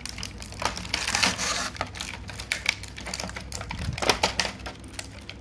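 Clear plastic blister packaging crackling and clicking in irregular snaps as fingers pick at it and squeeze the tray holding small plastic toy figures.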